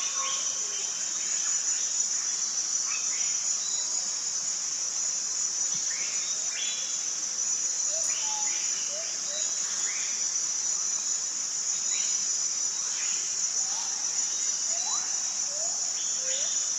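Steady high-pitched drone of a forest insect chorus, with scattered short rising bird notes sounding every second or two.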